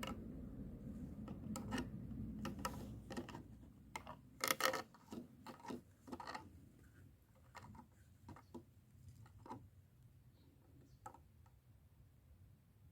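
Scattered light clicks and knocks of things being handled, a short loud cluster about four and a half seconds in, then only sparse faint ticks.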